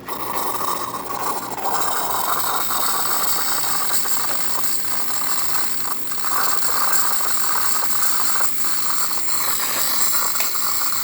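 Saeco Intelia Plus espresso machine steaming: its pump rattles in a steady, evenly pulsing rhythm under a continuous hiss from the steam wand.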